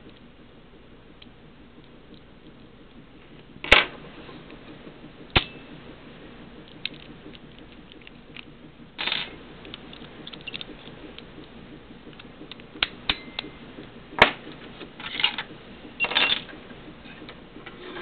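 Brass wafer padlock and steel lock picks being handled: scattered sharp metal clicks and clacks, two of them loud, with a few short scraping rattles.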